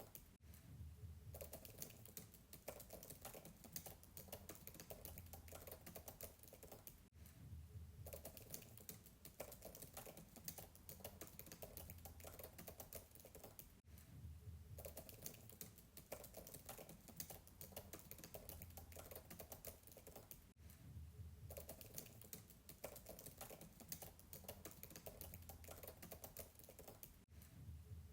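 Fast typing on a MacBook keyboard, a faint, dense run of soft key clicks, with a brief break about every seven seconds.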